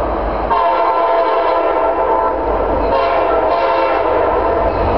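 CSX diesel freight locomotive's air horn sounding as the train approaches, a steady chord starting about half a second in and briefly broken near the middle before it sounds again, over a low rumble.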